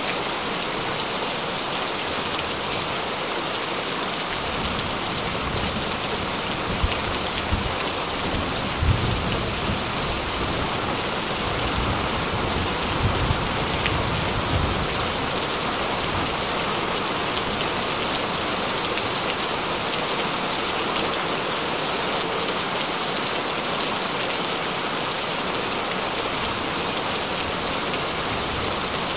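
Heavy rain pouring steadily. A low rumble of thunder swells in from about four seconds in and fades by about sixteen seconds in.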